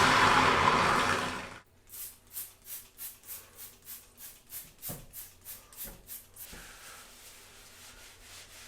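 A loud steady rushing noise cuts off suddenly about a second and a half in. Then come brisk scrubbing strokes on the bathtub, about three a second, stopping about two seconds before the end.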